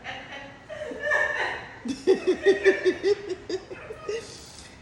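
A person laughing: a quick run of about eight short "ha" bursts lasting a second and a half, ending in a breathy exhale.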